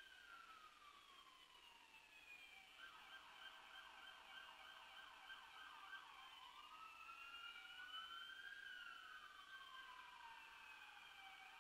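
Faint emergency vehicle siren, its pitch slowly rising and falling in a wail, with a few seconds of rapid yelping near the start before the slow wail resumes.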